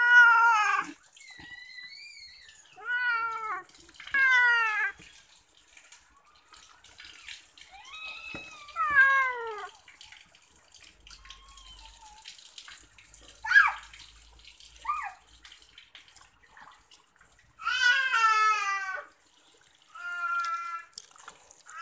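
Domestic cat meowing again and again while being washed, about ten calls, some short and some drawn out and sliding down in pitch. Water splashes faintly in a stainless steel sink between calls.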